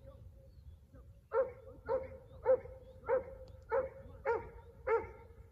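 A dog barking seven times in a steady run, about two barks a second, starting just over a second in. A faint steady hum sits underneath.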